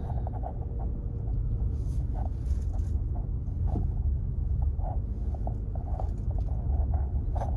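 Car cabin rumble from a car driving slowly, with scattered light pops and ticks at irregular intervals.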